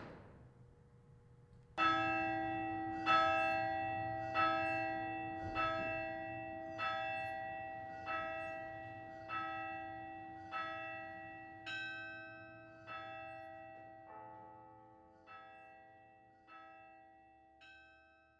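Carillon bells struck one at a time in a slow tune, about one note every second and a bit. Each bell is left ringing so the notes overlap and fade.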